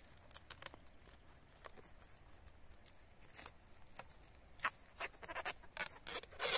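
Plastic stretch film crinkling and crackling as it is pulled off a roll and wound around a grafted tree trunk, in scattered small clicks that grow louder and more frequent near the end.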